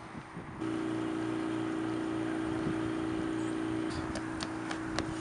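A steady low machine hum starts about half a second in and continues. From about four seconds in it is joined by a toddler's quick footsteps on the planks of a wooden footbridge.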